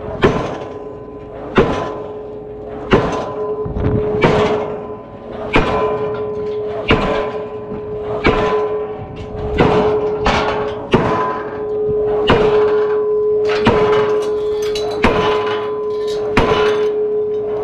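Diesel pile hammer driving a steel H-beam pile, one sharp ringing blow about every 1.3 seconds, steady throughout. A steady tone runs under the blows.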